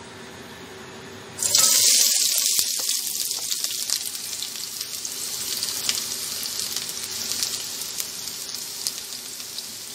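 Chopped onions dropped into hot oil in a pan, sizzling. The sizzle starts suddenly about a second and a half in, loudest at first, then settles into a steady frying hiss with small crackles.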